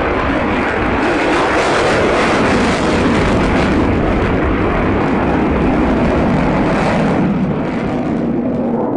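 F-22 Raptor fighter jet flying a display manoeuvre: the loud, steady noise of its twin afterburning turbofan engines, easing slightly about seven seconds in.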